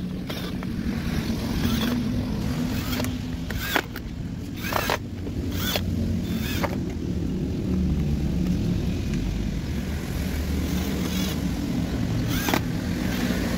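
Cordless drill-driver running as it drives screws back into a plastic cover, with a few sharp clicks in between.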